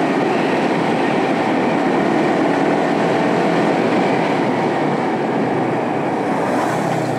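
Sport motorcycle ridden at speed: engine running steadily under heavy wind rush on the rider-mounted camera, easing off slightly near the end as the bike slows.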